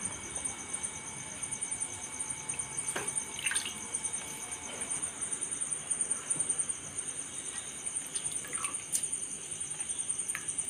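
Grated potato swished by hand in a glass bowl of water and squeezed out to rinse off the starch, with light splashing and dripping and a few faint clicks.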